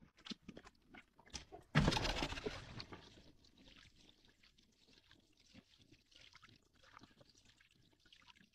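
Water splashing about two seconds in, then faint water hiss and trickling as a hydrofoil board skims across calm lake water.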